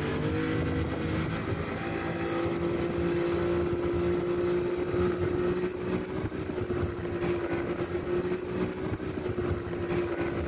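An 85-horsepower outboard motor running under way on a motorboat. Its note rises over the first second or two, then holds steady, over a continuous rush of water and wind.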